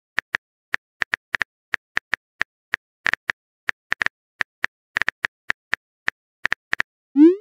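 Phone keyboard typing sound effect: quick, irregular taps, about three or four a second, ending near the end in a short rising swoosh as a message is sent.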